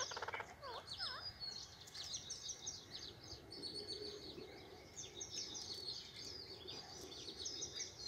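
Faint, busy high-pitched chirping and twittering of birds, many short quick notes overlapping, with a couple of short lower swooping notes about a second in.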